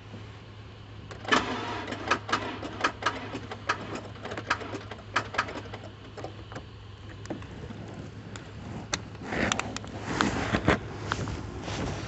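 A car's starter being tried off a portable 12 V jump starter clamped to the battery, giving a run of uneven clicks and knocks over a steady low hum, with a pause and a second try about 9 seconds in; the engine does not start.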